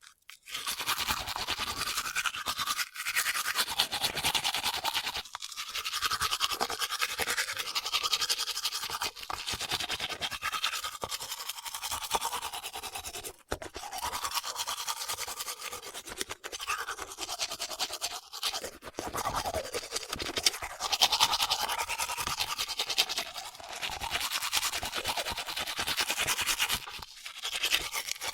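A man brushing his teeth with his mouth open: rapid, wet scrubbing strokes of the toothbrush bristles against the teeth, with a few short breaks.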